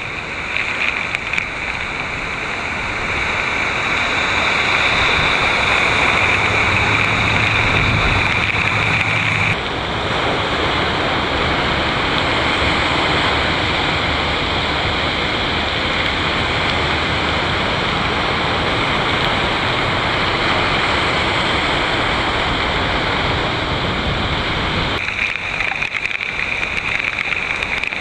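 Heavy rain pouring down while vehicles drive through flooded streets, their tyres throwing up splashing spray and waves of standing water; a steady, loud rushing hiss. A low vehicle engine note is heard for a few seconds before the sound changes abruptly about nine and a half seconds in.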